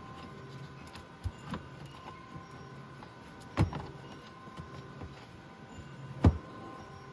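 Wiring and plastic parts being handled and pushed into place, giving a few scattered knocks and clicks, the loudest about six seconds in, over a faint steady hum.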